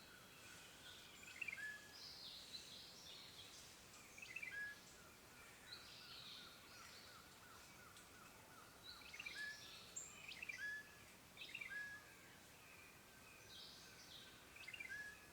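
Songbirds chirping and calling: short whistled notes and chirps repeating every second or so, with a rapid run of notes for a few seconds in the middle. Faint steady hiss of outdoor background underneath.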